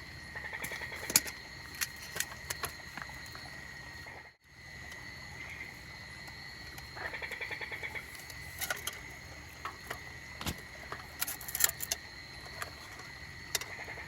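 Night chorus of insects and frogs: a steady high-pitched drone with a few runs of rapid pulsed calls, scattered sharp clicks, and a brief drop-out about four seconds in.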